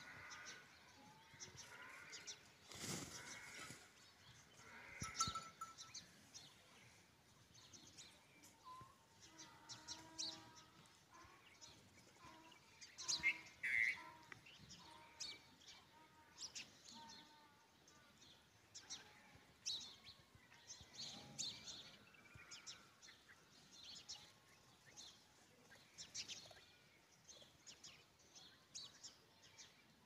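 Faint animal calls a few times, the loudest cluster about halfway through, with scattered short ticks and chirps over a quiet outdoor background.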